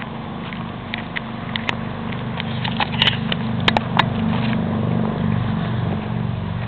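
A low engine drone from a distant motor, swelling to its loudest about two-thirds of the way through and then easing off, with scattered crunching footsteps on the dirt trail.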